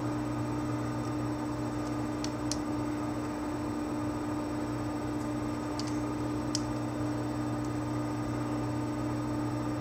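Steady electrical hum over background hiss, with a few faint clicks around two and a half and six and a half seconds in.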